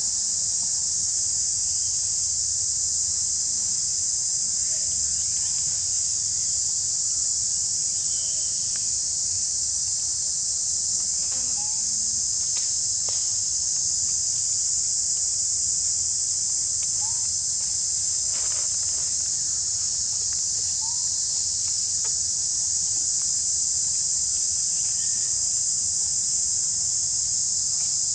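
Steady, loud, high-pitched insect chorus. A few faint short chirps and light clicks come over it now and then.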